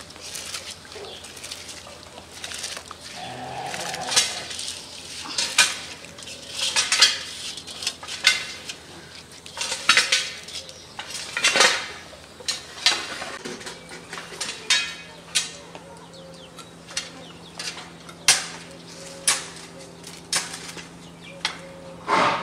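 Long metal skimmer knocking and scraping against the side of a large metal pot while rice is stirred in boiling water, in irregular clinks about one or two a second.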